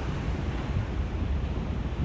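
Freight train rolling past with a steady low rumble, mixed with wind buffeting the microphone.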